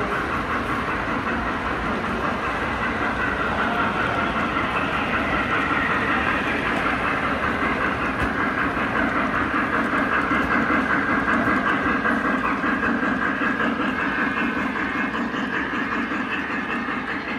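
Long model freight train running past on metal track, its wheels rolling steadily over the rails. It grows louder toward the middle and eases off near the end.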